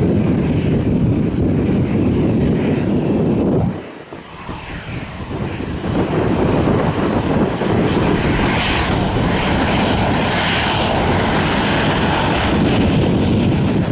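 Aircraft engines running loud and steady. The sound drops suddenly about four seconds in and builds back up over the next two seconds.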